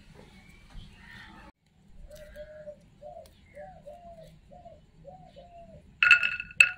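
A dove cooing in a run of short, evenly spaced coos. About six seconds in, peeled garlic cloves drop into a small steel bowl with a loud ringing clatter, the loudest sound here.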